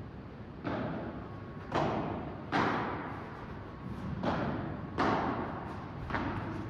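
Padel rally: about six sharp hits of the ball, one every second or so and unevenly spaced, each ringing on in the echoing indoor hall.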